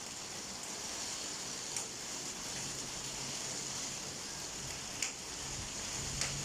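Heavy rain falling in a steady hiss, with a few sharper single drop hits, three of them standing out.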